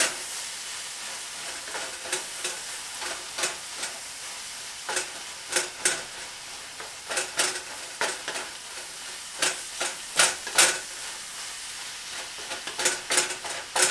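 Wooden spatula stirring and scraping through a skillet of frying ground beef, spinach, mushrooms and egg, in short irregular strokes over a steady sizzle.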